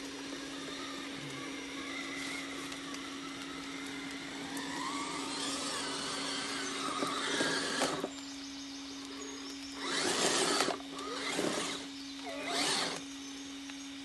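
Kyosho Blizzard RC snowcat's electric drive running with a steady hum; its whine rises in pitch from about four to eight seconds in while the tracked model climbs. Near the end come three short, louder noisy bursts.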